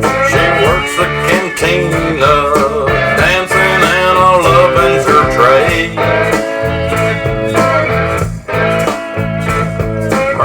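Recorded country-blues rock song in an instrumental passage: a lead guitar playing bending, sliding notes over bass and drums.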